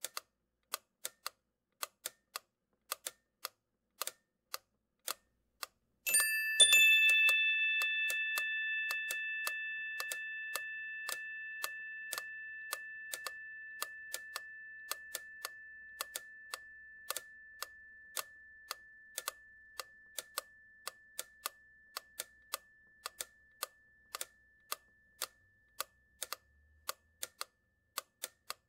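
Steady ticking, about two ticks a second. About six seconds in, a single bell-like tone is struck and rings on, fading slowly over some twenty seconds.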